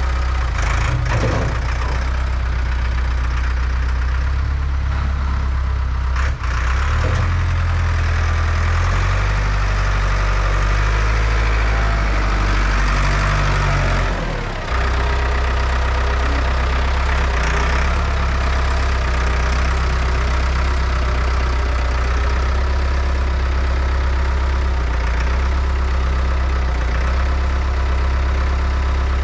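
STIHL 500i two-stroke chainsaw running continuously while cutting through a big, soft, water-logged tulip-tree trunk. Its tone shifts with the load, and the level dips briefly twice, about six and fourteen seconds in.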